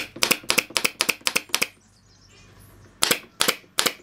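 Pneumatic nail gun firing rapidly, driving nails through wooden slats into a chair frame: a quick run of sharp shots about five a second, a pause of just over a second, then another run near the end.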